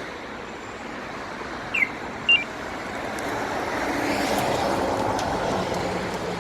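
Two short electronic chirps from a Magic Car G7 remote-start alarm, then the Isuzu 3.5-ton truck's diesel engine starting up by remote command, running louder for a couple of seconds before easing toward idle.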